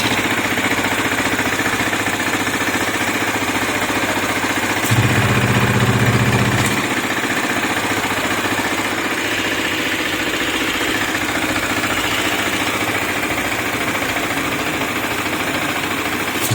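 KTM Duke 250 single-cylinder engine idling steadily after a top-end repair, its exhaust silencer closed off by hand so that only the engine's mechanical sound comes through; it runs free of the earlier cam and rocker noise, which came from a scored intake cam and rocker arm. About five seconds in the exhaust note turns louder and deeper for under two seconds.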